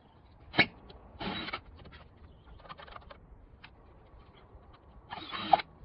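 Mechanical work noises: one sharp knock about half a second in, short scraping or rustling bursts, and scattered light clicks and creaks.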